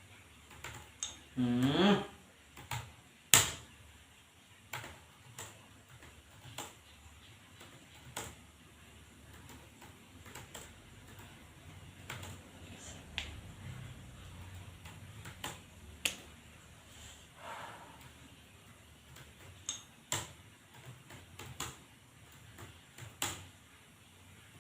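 Computer keyboard keys clicking slowly and irregularly, one sharp click louder than the rest a few seconds in. A brief voice sound rising in pitch comes near the start.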